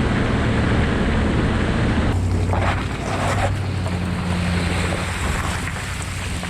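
Motorboat running on open water: a steady engine hum under wind buffeting the microphone and water rushing past the hull, the mix shifting about two seconds in.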